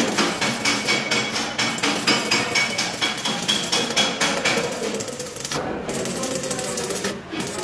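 A hammer striking steel repeatedly, a few blows a second, with a brief pause near the end.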